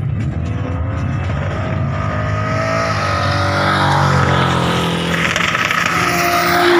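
A car engine revving hard through a burnout over the hiss of spinning tyres, its pitch climbing about two seconds in and again near the end.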